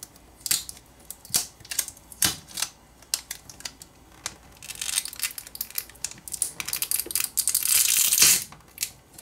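A smartphone battery being worked loose and peeled off its adhesive. Scattered clicks and taps come first, then a few seconds of crackling from about halfway in, loudest just before the end.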